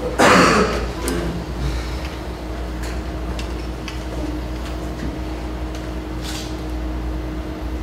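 Steady room hum with a faint constant low tone. Right at the start comes a loud, brief scuffing noise, followed by a few faint clicks and shuffles.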